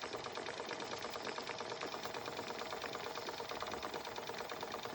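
Jensen 20G toy live-steam engine running slowly and quietly, turned down low: a steady, fast, even ticking from its slide valve and running gear.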